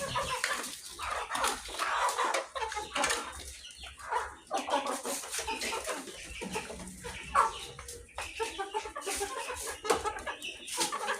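Chickens clucking in short, irregular calls.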